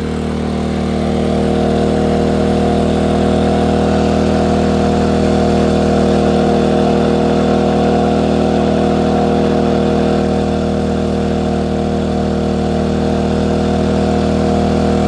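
Westinghouse iGen2550 inverter generator's engine running steadily, its level rising slightly about a second in and easing a little around ten seconds in. Neither quiet nor loud close by.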